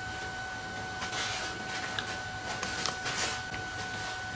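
Low room noise with a faint steady two-note electronic whine, broken by a few soft rustles and tiny clicks about a second in and again around three seconds in.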